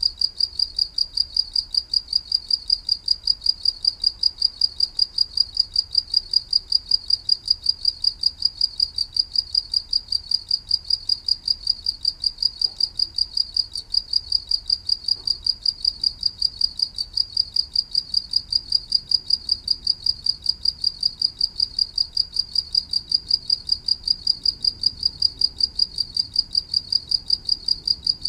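Cricket chirping steadily, one high-pitched chirp repeated at an even pace several times a second.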